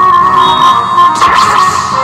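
Instrumental music with plucked strings, and a brief hissing swell a little past halfway.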